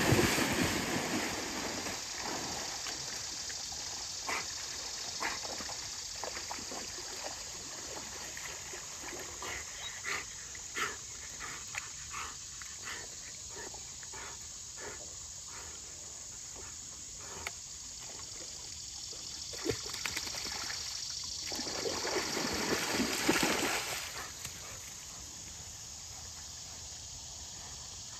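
Labrador retriever splashing in a shallow stream while clearing sticks: a burst of splashing at the start, then a long run of short knocks and snaps as sticks are worked out of the water, and a second burst of splashing near the end. The stream trickles steadily underneath.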